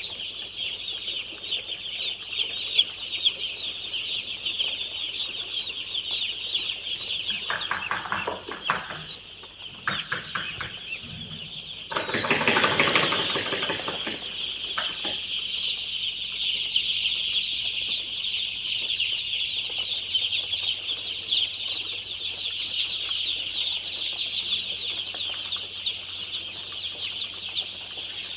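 Thousands of chicks in a poultry house peeping all at once in a dense, continuous high-pitched chorus. Around the middle a few louder bursts of rustling noise rise over it, the longest lasting about two seconds.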